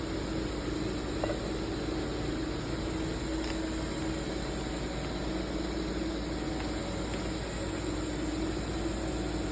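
Steady hum and hiss of running factory machinery, with a constant low drone throughout and one faint click about a second in.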